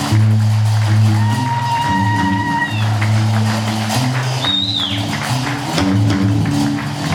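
Gnawa music: deep plucked bass notes of a guembri under a steady rattle of metal qraqeb castanets. A high held note sounds over them for about a second and a half, starting a second in.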